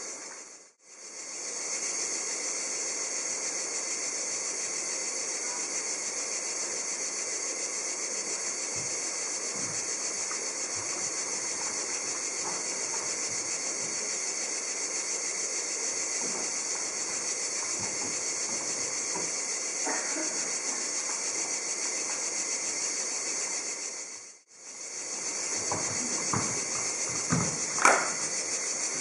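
Steady high-pitched hiss that drops out briefly twice, about a second in and near the end. A few faint short knocks follow near the end.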